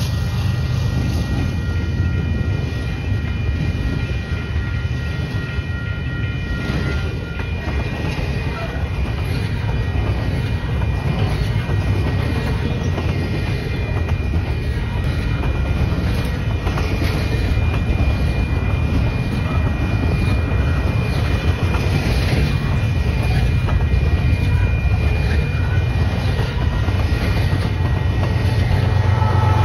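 Double-stack intermodal container cars of a freight train rolling past with a heavy steady rumble and rhythmic wheel clatter, with a thin steady squeal over it. A Canadian Pacific GE ES44AC diesel locomotive's low rumble swells near the end as the rear unit approaches.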